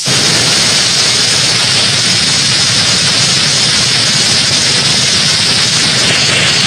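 A steady, loud roaring hiss with a low rumble underneath, starting suddenly and holding unchanged: a synthetic 'space sound' of a dwarf planet.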